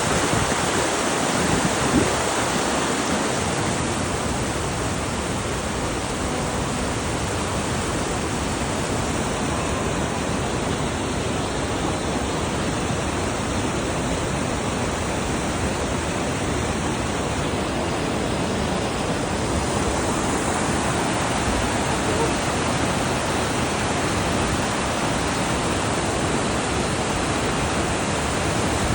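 Bridalveil Fall's steady, unbroken rush of falling water close by.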